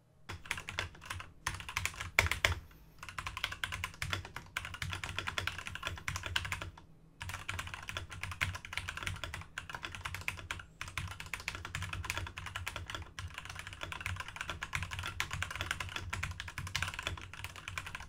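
Typing on a Redragon K654 BlueSiren full-metal mechanical keyboard with linear red switches: a fast, continuous run of keystrokes, pretty quiet, with a soft, cushioned sound, broken by two brief pauses.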